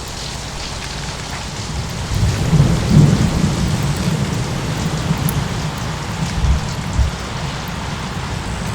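Steady rain with rolling thunder: a low rumble swells about two seconds in, peaks and slowly dies away, with two short low thumps later on.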